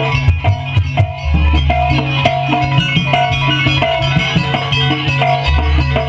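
Jaranan campursari music accompanying a dance: drum strikes in a quick rhythm over a repeating melody and a low steady bass.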